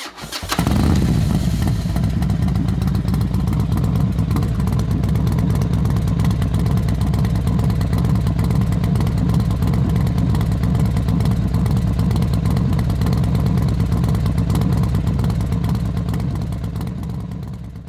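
Horizontal metal-cutting band saw running, its blade cutting through a 2-inch cold-rolled steel bar. It starts suddenly, runs steadily with a strong low hum, and fades out near the end.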